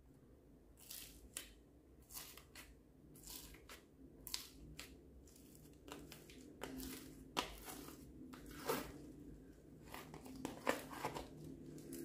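Slime covered in small foam beads (floam) being pressed and kneaded by hand, giving irregular crackles and crunches, with a few louder ones in the second half.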